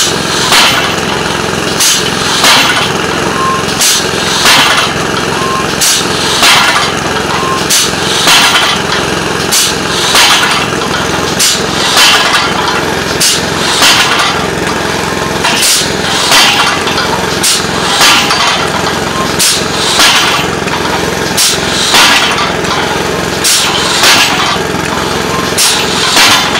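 600 lb pneumatic pile driver cycling under air power: sharp blasts of air and knocks from the cylinders and ram repeat at about three every two seconds. Under them a small engine runs steadily.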